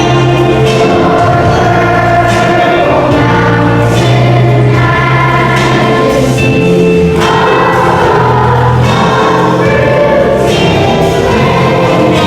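A choir singing with instrumental accompaniment, in long held notes.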